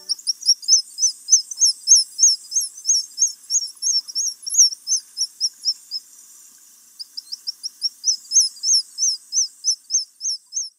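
A bird calling: a fast string of high, thin chirps, each rising and falling, about four a second, with a break of about a second past the middle.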